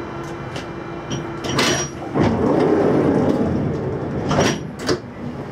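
Passenger doors of a Berlin U-Bahn GI/1E train sliding shut at a station, with a louder stretch of noise from about two seconds in and several sharp knocks.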